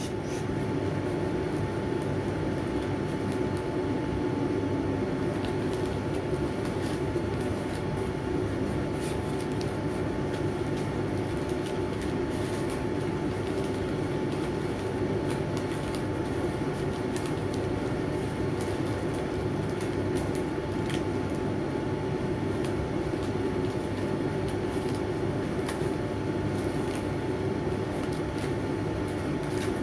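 A steady mechanical hum at an even level, with faint scattered crinkles of gold joss paper being folded by hand.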